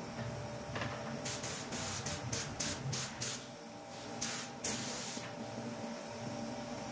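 Short bursts of spraying hiss: about eight quick sprays in a row, roughly three a second, then two longer sprays a second later.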